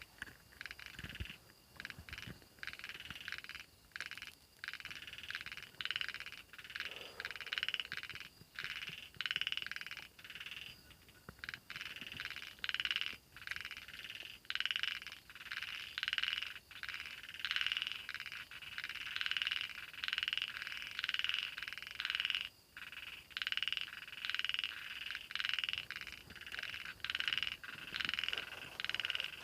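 Frogs calling at night, a chorus of repeated croaking calls that comes in regular pulses about once a second, over a faint steady high tone.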